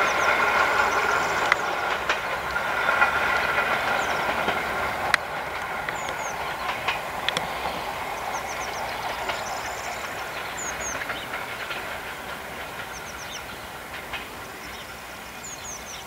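Passenger coaches behind a Pt47 steam locomotive rolling away over the rails, wheels clicking over rail joints, the rumble fading steadily as the train recedes.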